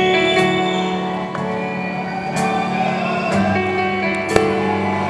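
A live band playing a slow instrumental song intro: held chords with guitar. A single sharp click about four seconds in.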